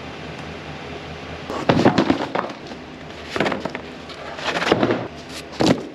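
Several loud bangs and clattering knocks in four clusters about a second apart, over a low steady hum that fades out early.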